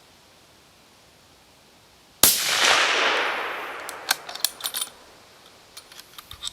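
A suppressed 6.5x55 Carl Gustaf 1900 rifle fires a single shot about two seconds in: a sharp crack with a long fading echo. A series of short sharp clicks follows.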